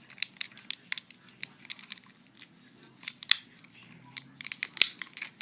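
Irregular small plastic clicks from the buttons, switch and controls of a fidget cube being fiddled with, a sharper click about three seconds in and a cluster near the end.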